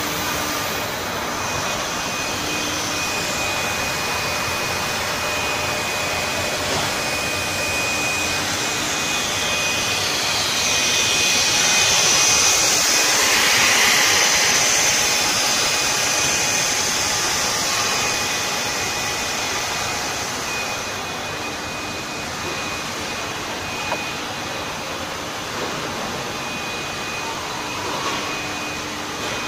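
Rubber hose extrusion line running: a steady machine noise with a constant high whine. A louder hissing rush swells and then fades through the middle.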